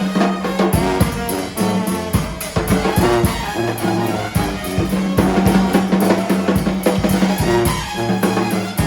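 Band music: a drum kit keeping a steady beat, with brass and a deep bass line of held notes.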